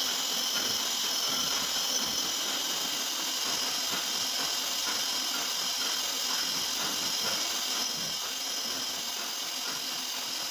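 CNC milling machine drilling a pattern of small holes in a steel plate, its spindle running with a steady high hiss and whine.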